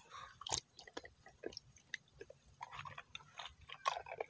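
Muddy plastic toy car being washed by hand in water: faint, irregular wet squishes and small clicks as it is rubbed and handled.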